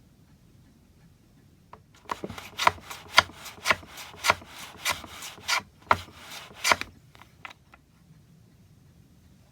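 A hand tool worked back and forth on wood, about eight rasping strokes at roughly two a second, starting about two seconds in and stopping about seven seconds in.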